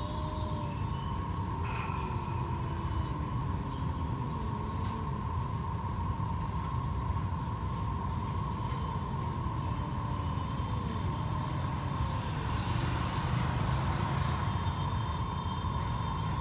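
Outdoor background of steady low traffic rumble and a constant high hum, with small birds chirping over and over. Faint, drawn-out falling yowls come now and then from the stray cats still growling at each other, once early on and again about halfway through.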